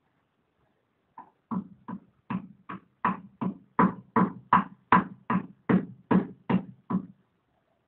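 Rhythmic knocking, about three knocks a second, starting about a second in and stopping shortly before the end.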